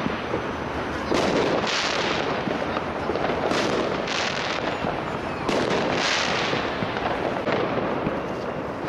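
Aerial fireworks bursting overhead: a sharp bang about every two seconds, each followed by about a second of crackling.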